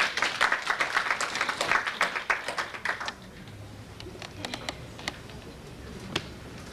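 Audience applauding, dying away about three seconds in, followed by a few scattered claps or clicks.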